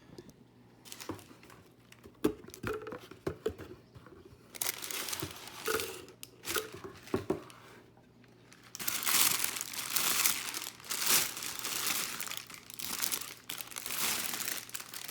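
Packaging crinkling and rustling as it is handled and searched through, in scattered bursts at first and then continuous and louder from about nine seconds in.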